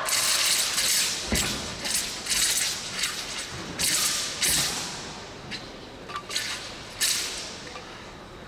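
Southern broadsword (nandao) blade swishing through the air in a quick, irregular series of cuts and swings, about a dozen swishes that thin out toward the end. A heavy thud of a foot stamping on the competition carpet comes about a second in.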